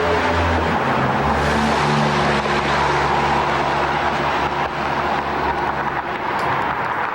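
A motor vehicle running on the street, a steady low engine hum that drops slightly in pitch about a second in, over road noise.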